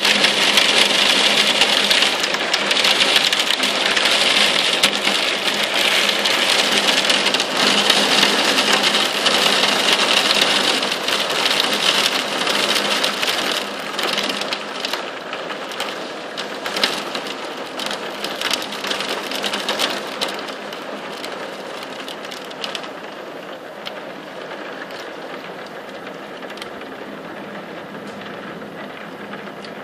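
Torrential rain mixed with hail pelting down, a dense hiss shot through with many sharp hits. It eases from about halfway through and settles to a quieter, steadier rain.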